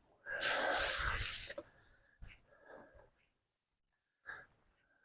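A person's heavy, noisy breath out lasting about a second and a half, followed by a few faint short sounds.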